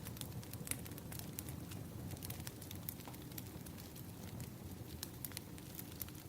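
Firewood burning, crackling with many irregular sharp pops and snaps over a steady low rumble of the fire.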